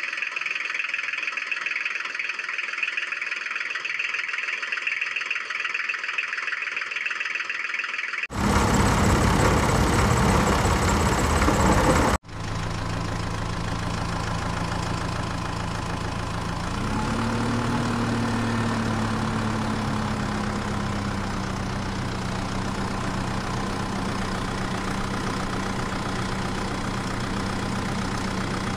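Engine sound in separate edited stretches: a loud hiss from about 8 to 12 seconds in, then a steady low idle whose pitch rises briefly about 17 seconds in.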